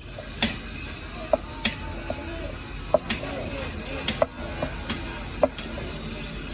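Sharp metal clinks and knocks at uneven intervals, about ten in a few seconds, from tools and parts being handled during truck differential work.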